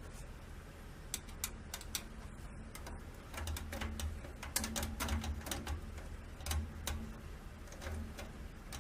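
Irregular light clicks and taps as a card reader and its screws are worked loose in a computer case's drive bay, with a few short low hums in the middle.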